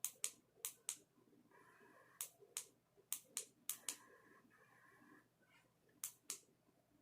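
Sharp plastic button clicks on the control of a colour-changing light, pressed repeatedly in quick pairs about a quarter second apart, six pairs in all with pauses between them, as the light is cycled through its colours. A faint steady tone sounds between some of the presses.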